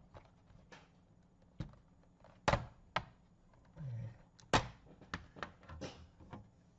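Plastic bottom cover of an Acer Spin 3 laptop being pried off, its clips snapping loose in a string of sharp clicks and snaps. The two loudest come about two and a half and four and a half seconds in.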